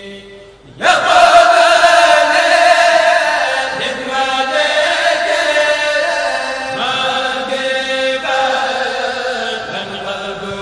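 Chanting of a khassida, an Arabic devotional poem, sung in long held, melodic lines. After a brief pause the chant comes back in loudly about a second in.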